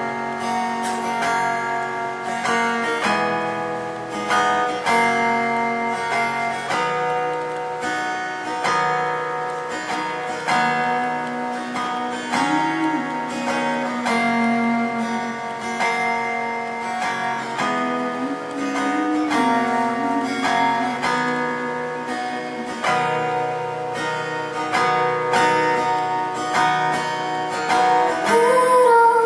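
Live music: an acoustic guitar strummed and picked steadily, with a woman's voice singing a slow melody at times.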